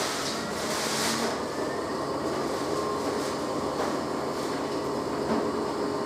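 Electrolux 365H LE washing machine running: a water-like hiss fades out about a second in, leaving a steady motor hum with a faint whine from the turning drum.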